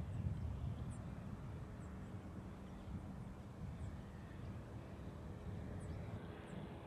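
A powered parachute's engine droning faintly in the distance under a low wind rumble on the microphone. A few short, high chirps sound over it.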